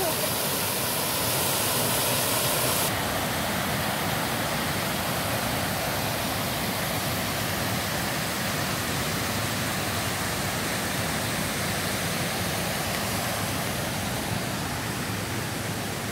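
Waterfall water rushing steadily over wide, low rock-ledge cascades, a continuous even roar of falling water.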